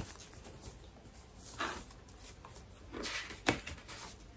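Faint rustling of a paper card being handled and opened, with a few soft swishes and light ticks, the sharpest about three and a half seconds in.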